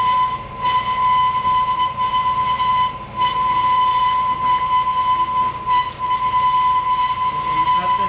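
Air tool running with a steady high whine, dipping briefly a few times under load as spot welds in the truck's cab corner are cut out.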